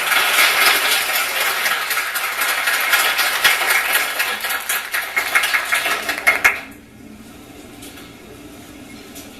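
A small audience clapping, a dense patter of many hands that thins out and stops abruptly about two-thirds of the way through, leaving a quiet room.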